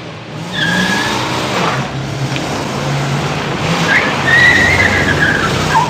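A car's engine running hard as it drives off, its tyres squealing: a short squeal about half a second in and a longer one from about four seconds in.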